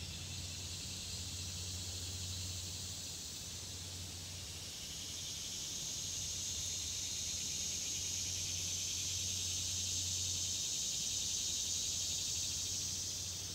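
A steady, high-pitched chorus of summer insects, swelling slightly in the second half, over a faint low rumble.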